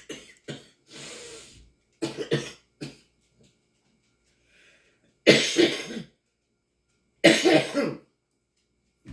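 A woman coughing: first a few short coughs and throat clearing, then two loud coughs about two seconds apart. She puts the coughing down to her allergies.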